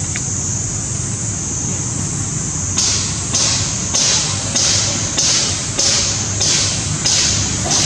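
Steady high-pitched insect drone, joined about three seconds in by a rhythmic pulsing hiss at a little under two pulses a second, over a low background rumble.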